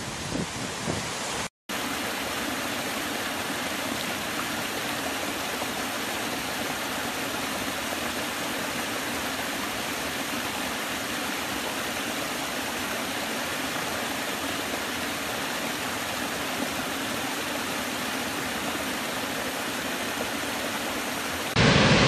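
Steady rushing of a small cascade of water spilling over rock ledges. It opens with a second or so of wind buffeting and water, then a brief dropout. Just before the end a louder, fuller rush from a large waterfall cuts in.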